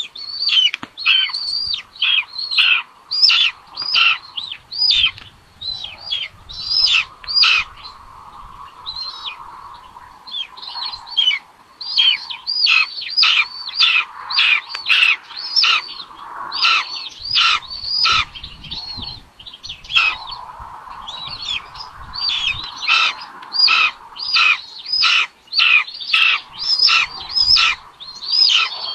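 Raptor nestlings at the nest begging for food while being fed: a run of loud, repeated, down-slurred whistling calls, about two a second, with short pauses about a third of the way through and again around two-thirds.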